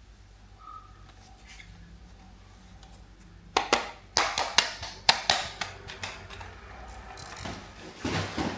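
Plastic toys being handled: a rapid run of sharp clicks and clatter starting about three and a half seconds in, with a denser burst near the end.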